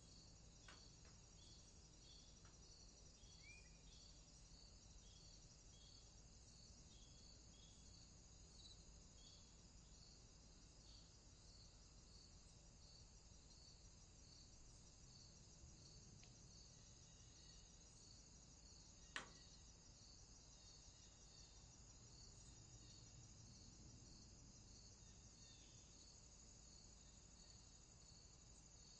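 Faint outdoor ambience of crickets chirping steadily at about two chirps a second, over a continuous high insect hiss and a low rumble. A single sharp click stands out about two-thirds of the way through.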